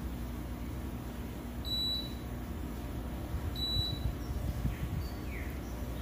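Two short, high electronic beeps about two seconds apart, over a steady low rumble.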